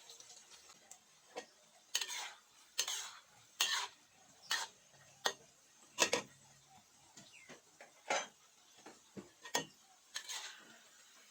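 A cooking utensil stirring food in a pot, giving irregular clinks and short scrapes about once a second.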